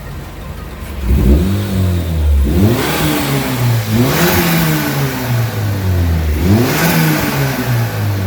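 Turbocharged Honda Civic engine with a racing muffler, revved from idle in four quick throttle blips, the pitch climbing and dropping back each time.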